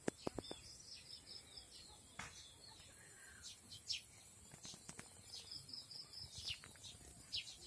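Birds chirping faintly, with runs of quick repeated high notes and short downward-sweeping calls. A few light clicks in the first half second.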